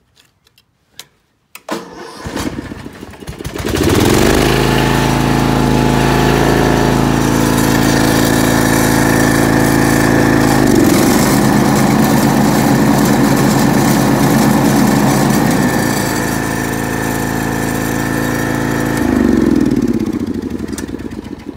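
Snapper rear-engine riding mower's engine cranking and catching about two seconds in, then running steadily. About eleven seconds in the pitch dips briefly as the blades are engaged, and it runs on with the mower blades spinning on the rewelded deck spindle. Near the end it winds down.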